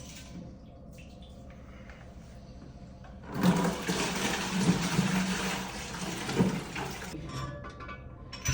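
Newly installed toilet flushing: a loud rush of water starts about three seconds in and cuts back to a quieter flow about four seconds later.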